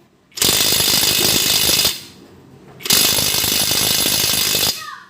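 Bossman impact wrench hammering in two bursts of about a second and a half each, with a pause of about a second between them, working on a drive shaft nut.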